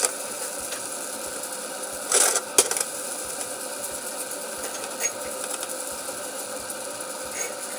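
Chopped noodles and rice frying in a nonstick frying pan with a steady sizzle, while a nylon spatula scrapes and knocks against the pan as the food is stirred and turned. A couple of louder scrapes come about two seconds in.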